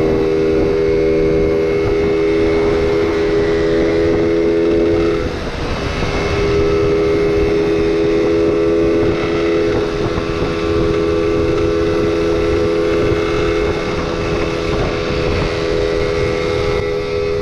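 Small motor scooter engine running under way with a steady droning note, with wind noise on the microphone. About five seconds in the engine note drops briefly, then picks back up and holds steady.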